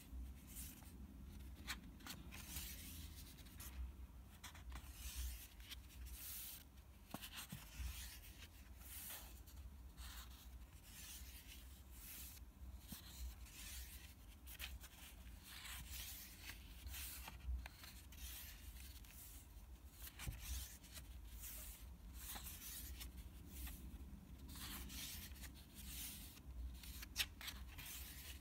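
Faint rustling of sketchbook paper as fingers handle and turn the pages, in irregular swishes and small clicks.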